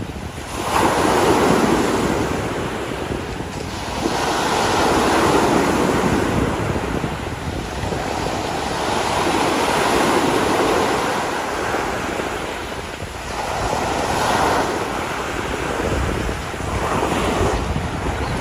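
Small waves breaking and washing up a sandy beach, swelling and fading every few seconds, with wind buffeting the microphone.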